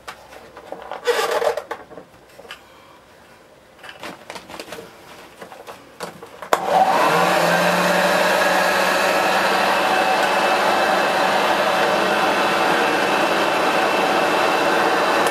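Clicks and knocks as the drive belt and cover are fitted on a Hoover Junior 1346A upright vacuum cleaner, then about six and a half seconds in its freshly rebuilt motor is switched on, runs up with a short rising whine and runs steadily and loudly.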